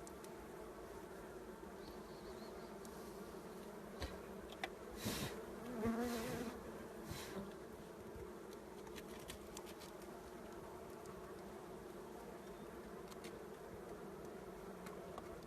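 Honeybees buzzing steadily. A louder, pitched buzz swells about five to six seconds in, as of a bee passing close, with a couple of sharp clicks just before it.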